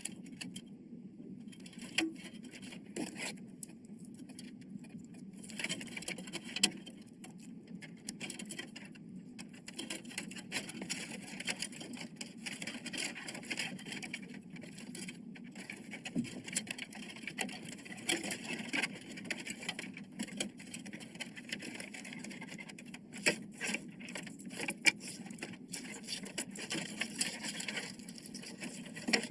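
Scattered small clicks and scrapes of hard parts being handled, over a steady low background noise.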